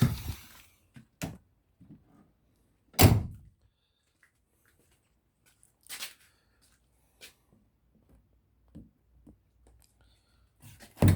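A few separate thumps and knocks of objects being handled and moved while someone searches for parts. The loudest thump comes about three seconds in and another near the end.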